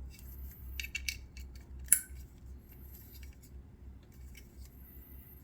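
Small clicks and taps from handling the unboxed amplifier's accessories, with one sharp click about two seconds in.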